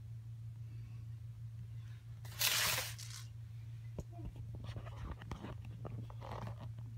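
A cat biting, tearing and chewing blades of cat grass: crunching and rustling, loudest in a burst of about a second a little over two seconds in, then several shorter ones. A steady low hum runs underneath.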